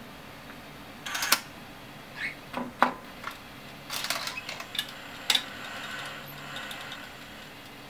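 An LTO-2 tape drive loading a cartridge: a run of irregular mechanical clicks and clunks as the loader seats the cartridge and threads the tape leader. In the last few seconds a faint steady whirr follows as the reel motors wind tape onto the take-up reel.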